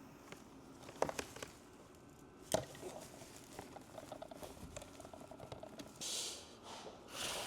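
Faint, scattered light clicks and knocks of small parts being handled, with a short hiss about six seconds in and again near the end.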